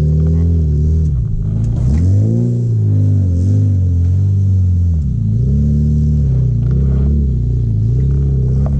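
Off-road 4x4 engine running loud and low, revving up and falling back in repeated pulls as it crawls over rocks.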